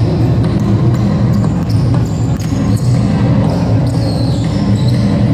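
Basketball game sounds: a ball dribbling, with short high sneaker squeaks over a steady low din.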